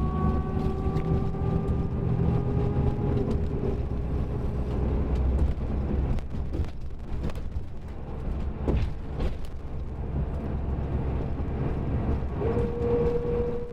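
Mercedes-Benz OM-457LA inline-six turbodiesel of a double-decker coach running under way, a steady low rumble with a whine that rises slowly in pitch. A few sharp knocks come around the middle, and near the end a higher whine sets in.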